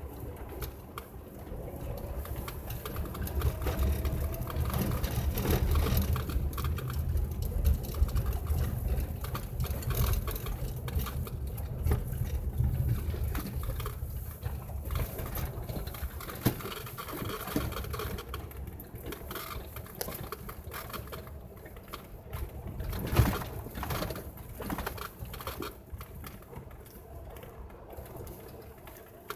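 Inside a vehicle driving slowly over packed snow and ice: a low road and engine rumble, heaviest in the first half, with tyres crunching and scattered clicks and rattles. One louder knock comes about three-quarters of the way through.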